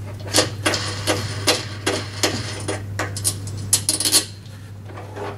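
Steel bolts, washers and wing nuts on a lawn mower's handle brackets clicking and clinking as they are unscrewed and taken off: a string of short, sharp metallic taps and rattles.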